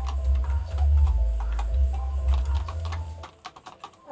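Chicken pecking at feed in a plastic cup: a quick, irregular run of sharp taps over a low rumble that drops away about three seconds in.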